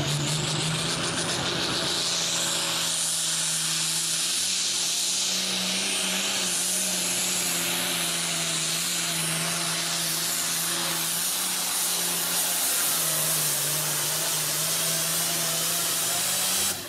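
Diesel engine of an International Harvester pulling tractor running flat out under heavy load as it drags a weight-transfer sled, a steady engine note under a loud hiss. It cuts off abruptly near the end.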